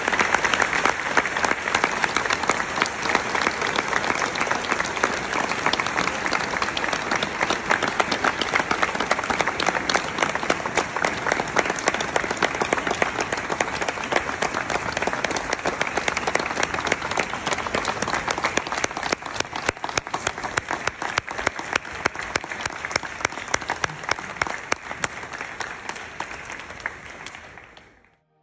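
A large audience applauding steadily, a dense crackle of many hands clapping that fades out near the end.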